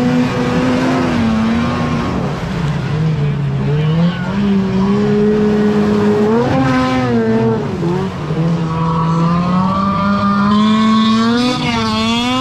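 Snowmobile engines running hard as the sleds skim across open water, the engine note rising and falling repeatedly and climbing steadily in the last few seconds.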